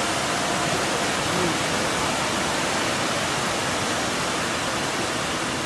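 Bellagio fountain's water jets spraying and the water falling back into the lake, heard as a steady rushing hiss.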